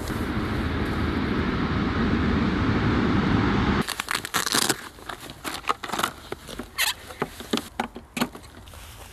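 A steady rushing noise, slowly getting louder, cuts off suddenly about four seconds in. It is followed by irregular clicks and rustling of things being handled.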